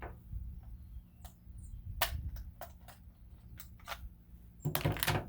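Scattered sharp clicks and knocks of hand tools and sheet-metal parts as an old gas furnace is taken apart, with one sharp clank about two seconds in and a louder scraping rattle near the end.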